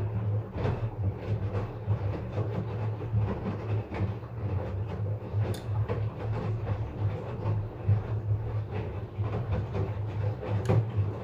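LG front-load washing machine running its rinse-and-spin cycle: a steady low motor and drum hum with frequent irregular knocking and rattling as the machine shakes.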